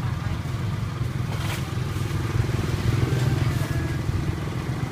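Small motorcycle engine running steadily close by, a low pulsing rumble, with a single sharp click about a second and a half in.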